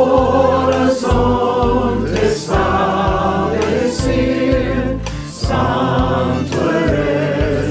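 Background worship music: several voices singing together over a steady bass accompaniment, in phrases with short breaks between them.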